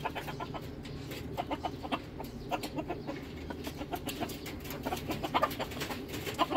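Broody hen clucking in short, rapid calls, several a second, while sitting on her hatching eggs.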